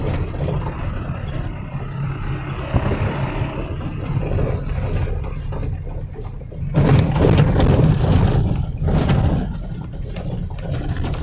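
Vehicle driving on a rural road: a steady low rumble of engine and road noise, swelling louder for a couple of seconds from about seven seconds in and again briefly near nine seconds.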